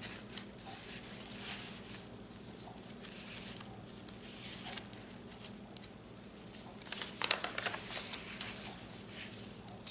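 Paper rustling and soft handling noises as the pages, tags and small cards of a handmade paper journal are lifted and turned, with a few sharper crinkles about seven seconds in, over a faint steady hum.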